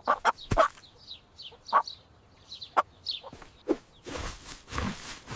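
Chicken clucking in a rapid series of short clucks and chirps, mixed with sharp clicks, then a rustling noise in the last second or so.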